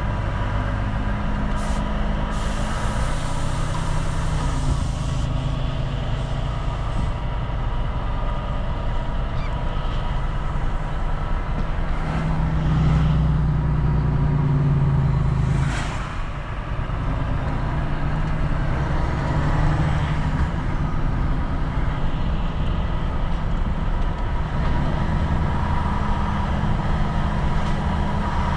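Volvo FM4 truck's diesel engine running under way, its note rising and falling in steps as the truck changes gear, louder for a few seconds about halfway through and then dropping off. Short hisses of released air come near the start and about halfway through.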